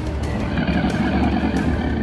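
Background music with a heavy, steady low rumble underneath.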